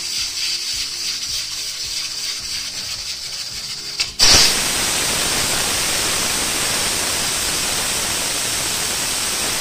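Aluminium pressure cooker being depressurised after cooking. A softer steady hiss runs for about four seconds. Then a click as the pressure weight is lifted off the vent, and a loud, steady rush of escaping steam for the rest of the time.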